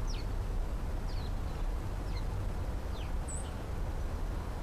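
Small birds chirping: short, high, thin chirps that sweep downward, about one every second, over a steady low rumble.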